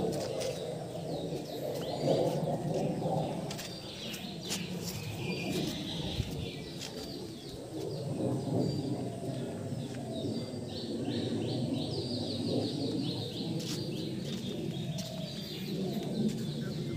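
Small birds chirping and trilling, with doves cooing lower down and a few sharp clicks.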